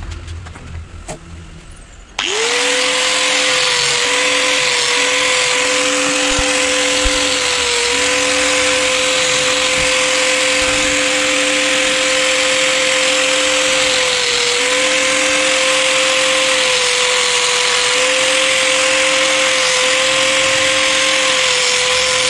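Handheld electric angle grinder with a cutting disc switched on about two seconds in, spinning up at once to a steady high whine, and cutting through PVC pipe. A lower hum comes and goes as the disc bites into the pipe.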